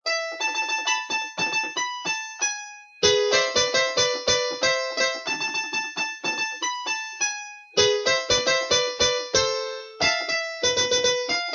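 Korg Kross synthesizer playing one of its cumbia keyboard sounds: short runs of quick, detached notes, broken by brief pauses three times.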